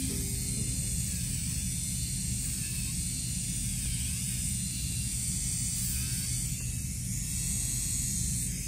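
Electric nail drill (e-file) running at high speed, a small bit working along the nail and cuticle: a steady high whine over a low hum, its pitch dipping briefly about halfway through and again a couple of seconds later.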